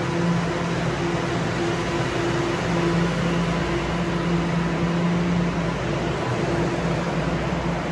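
Bombardier Toronto Rocket subway train moving slowly along the platform as it pulls out, giving a steady hum and rush of noise with no rise in pitch.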